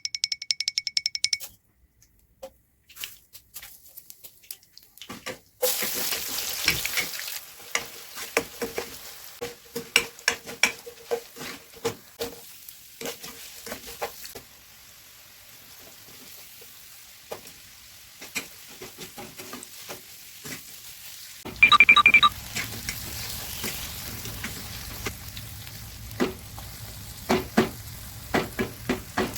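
Food frying in a pan: a steady sizzle under repeated clatter and scrapes of a spoon stirring against the pan. About three-quarters of the way through there is a brief, loud run of repeated high tones, and after it a low steady hum sits under the frying.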